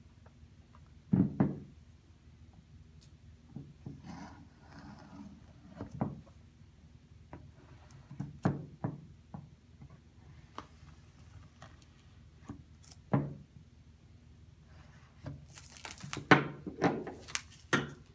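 Scattered knocks, thunks and soft scrapes of a cardboard watch box and a pocket knife being handled on a wooden tabletop while the box is opened. A denser run of louder knocks comes near the end as things are set down on the table.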